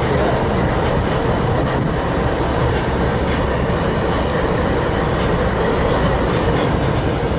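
Freight train cars rolling past on the rails: a steady, loud rumble and rattle of wheels on track.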